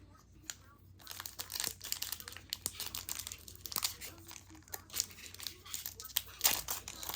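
Crinkling and tearing of a Pokémon card booster pack's wrapper as it is opened, starting about a second in and going on in quick irregular crackles.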